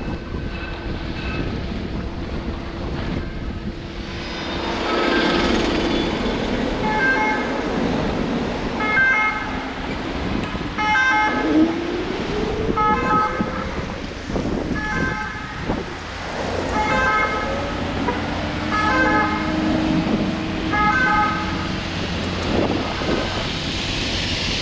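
Two-tone emergency vehicle siren, the European 'pin-pon' kind, switching between a high and a low note about once a second. It starts about five seconds in and stops shortly before the end, over street traffic noise and wind on the microphone.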